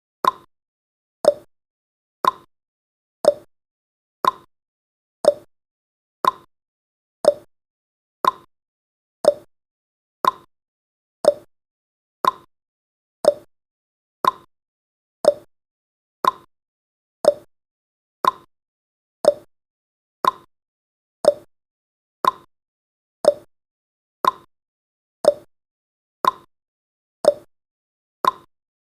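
Countdown timer's tick sound effect: one short, sharp tick each second, each dying away quickly, in a steady beat.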